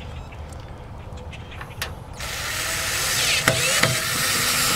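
Power drill-driver driving a stainless steel Phillips screw into a mailbox mounting platform. A few small handling clicks come first, then the drill starts about two seconds in and runs on, its pitch shifting as the screw goes in.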